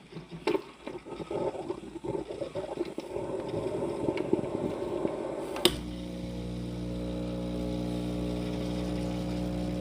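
Ninja espresso machine brewing an espresso. It makes irregular gurgling and bubbling for about five and a half seconds, then clicks, and its pump settles into a steady hum.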